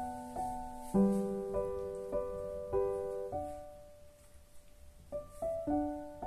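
Background piano music: gentle notes and chords struck about every half second, easing to a single held note in the middle before the playing picks up again.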